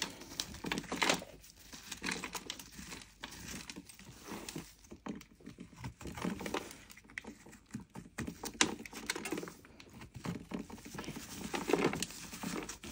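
Snap-off utility knife blade scraping the dry crust off a block of clay, in short irregular scratches, with flakes and crumbs crackling and pattering down.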